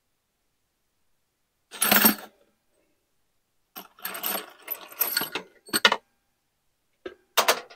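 Loose metal bolts and nuts rattling and clicking in plastic jars as a hand rummages through them, in several short bursts. The loudest clatter is about two seconds in, followed by a spell of rattling and a few sharp clicks near the end.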